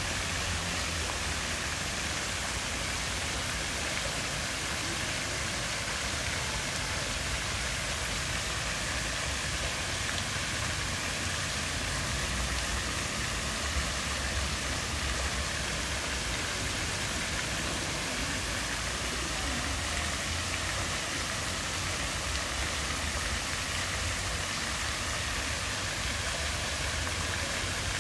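Park fountain's rows of thin water jets falling into the pool, a steady splashing hiss.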